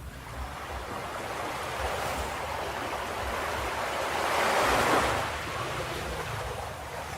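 Ocean waves on a beach: the surf swells, one wave breaks loudest about five seconds in and then washes back down.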